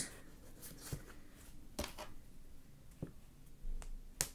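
Quiet handling sounds: a few faint, separate taps as a folded EVA foam sheet is set against a wooden ruler on a wooden table and marked with a thin wooden stick, the last tap near the end the loudest.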